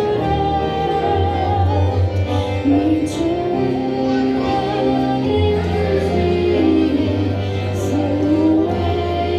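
A young woman singing a Christian praise song into a microphone, amplified in the room. She sings over an instrumental accompaniment whose bass notes are held and change every second or two.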